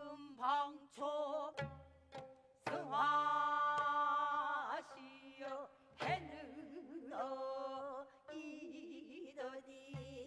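Gayageum byeongchang: Korean gayageum zithers plucked while a woman sings long, wavering held notes in pansori style. A few deep drum strokes fall about four seconds apart.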